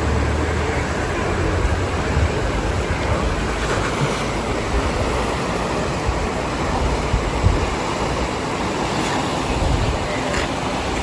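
Steady road and wind noise from a moving vehicle, a continuous rushing hiss over a low rumble, with wind buffeting the microphone.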